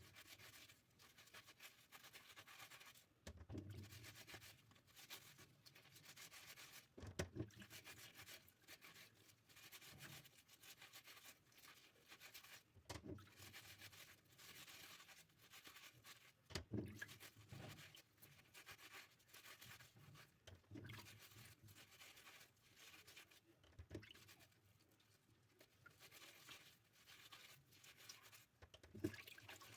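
Faint rubbing and scratching from items being handled, with a soft knock every few seconds.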